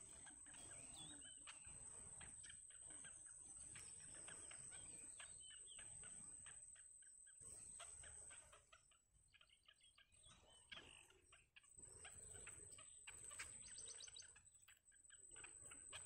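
Faint, quick chirping of bittern chicks begging at the nest as the parent feeds them, over a steady thin high whine. The chirping thins out near the middle.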